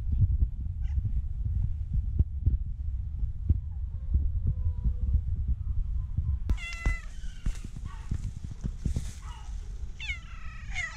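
A cat purring close up, a low pulsing throb, for about the first six seconds. Then the sound changes abruptly to cats meowing: a short meow about seven seconds in and a longer meow falling in pitch near the end.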